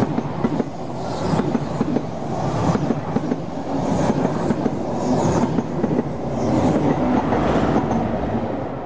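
An East Coast InterCity 125 (HST) running past: the Mark 3 coaches' wheels clatter rhythmically over the rail joints, and the trailing diesel power car comes by near the end.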